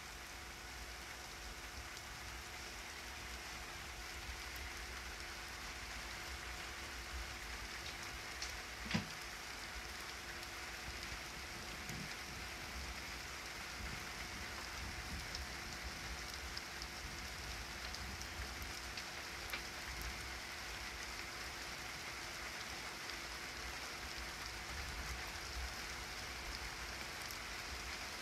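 Light rain falling steadily, with one sharp click about nine seconds in.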